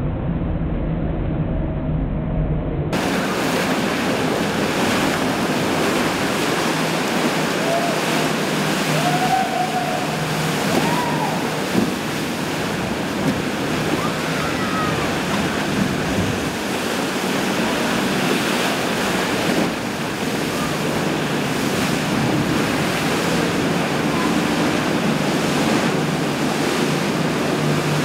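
Rough, churning whitewater of a fast canal current and boat wakes, a steady rushing wash. In about the first three seconds it is mixed with the low rumble of a boat's outboard engine.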